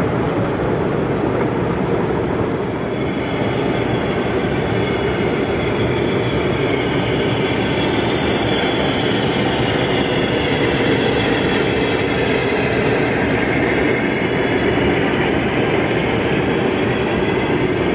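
0 gauge model train running along the layout's track: a steady rumble of wheels on rail, with faint wavering squeals from about three seconds in.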